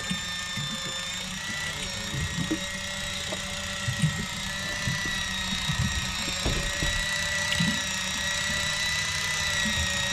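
Electric fishing reel's motor whining steadily as it winds line in against a bent rod, the pitch wavering slightly under load. Scattered low knocks sound underneath.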